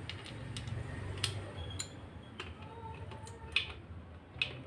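Irregular light metallic clicks and clinks, about eight of them with the sharpest about three and a half seconds in, from small tools and parts being handled on the opened gear stack of a Suzuki Multicab manual transmission during disassembly.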